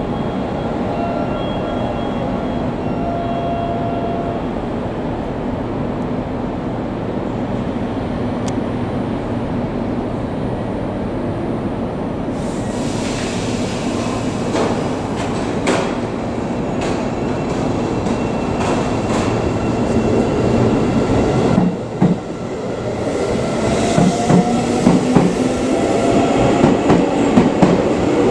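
Seibu 9000 series electric train standing at the platform with a steady hum, then pulling away. From about two-thirds of the way in, a rising whine builds as it accelerates, with wheels clacking at a quickening pace over the rail joints.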